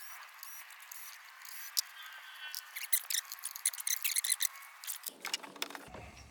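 Faint, irregular clicking and rubbing of hand tools and parts being worked on top of a Ford V8 engine, as ignition coils are removed for a spark plug change.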